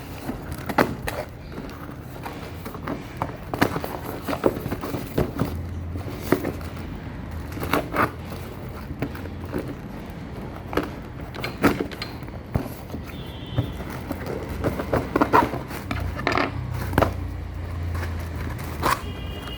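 A cardboard box and its packaging being opened and handled: irregular scrapes, rustles and sharp knocks throughout.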